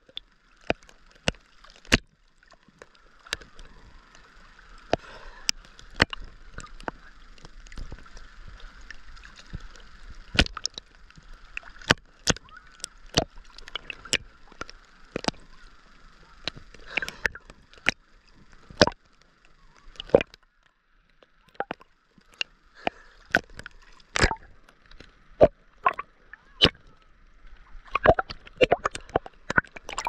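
Sea water sloshing against a camera held at the surface, with many sharp, irregular slaps and clicks as small waves hit it, over a muffled hiss.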